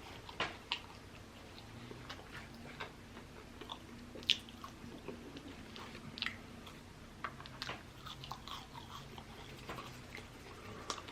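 A person chewing and biting food close to the microphone, with irregular wet mouth clicks and smacks and one sharper snap about four seconds in.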